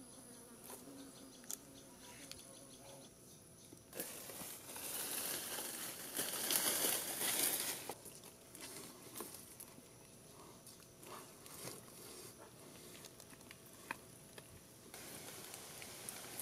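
Leaves and dry fronds rustling, loudest for about four seconds in the middle, with scattered light knocks and clicks of branches and poles.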